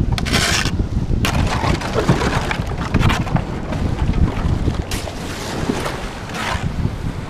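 Kayak hull pushing through thin lake ice, crunching and scraping against the ice sheet as it is paddled, with a few louder scraping bursts near the start and again about five and six and a half seconds in. Heavy wind buffets the microphone.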